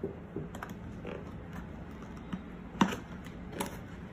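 A white cardboard box being opened by hand: scattered clicks, taps and creaks of the card flaps and lid, the loudest a little under three seconds in.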